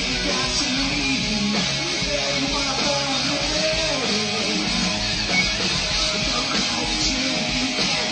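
Live rock band playing a song mid-performance, a full band with electric guitar to the fore.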